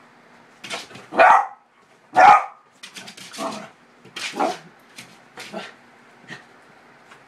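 A dog barking repeatedly in short, sharp barks while leaping at a spot of reflected light on a wall. The two loudest barks come about one and two seconds in.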